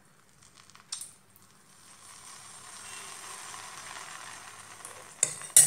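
Dosa batter sizzling as it is poured into hot coconut oil in a cast-iron pan, the hiss building up about two seconds in and holding steady. Two sharp clinks near the end are the loudest sounds.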